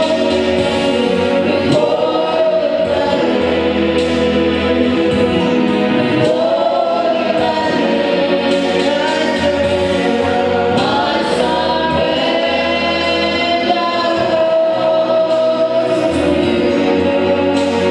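A church choir and congregation singing a gospel worship song over a steady band accompaniment with a bass line.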